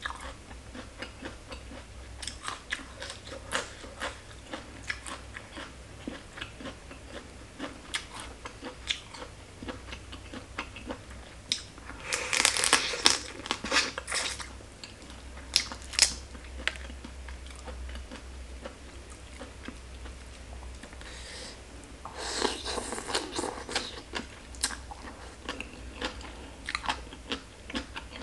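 Close-miked eating of pickled salted crab: chewing and lip smacks with many small sharp clicks, and two longer spells of crunching as the crab shell is bitten into, about twelve seconds in and again about twenty-two seconds in.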